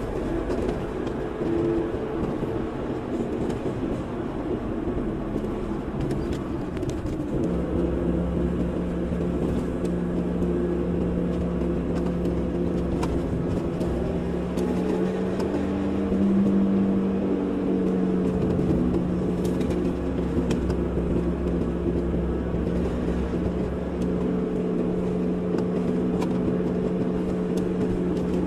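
Car engine and road noise heard from inside the car while driving, a steady hum that rises slightly in pitch about halfway through.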